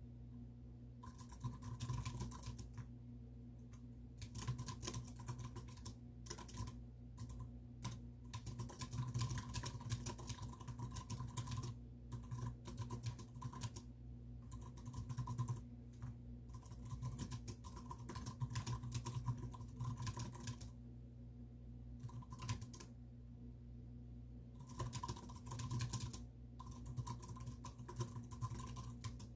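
Typing on a computer keyboard: quick runs of key clicks broken by pauses of a second or two, over a steady low hum.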